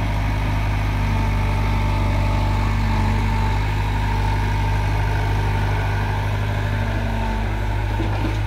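Steady low diesel drone of a Farmtrac tractor's engine idling close by, with a Caterpillar excavator's engine running as it digs and loads soil.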